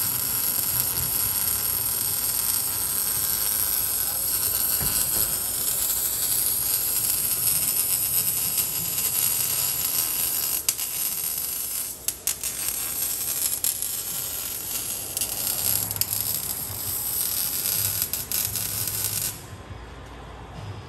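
MIG welding arc crackling and hissing steadily as a chrome tip is welded onto a straight-pipe exhaust. It breaks off briefly about twelve seconds in, resumes, and stops a couple of seconds before the end.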